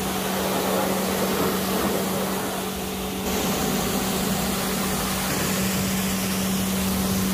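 AVA Evolution P70 electric pressure washer running and spraying: a steady motor hum under the hiss of the water jet, cutting off suddenly at the very end.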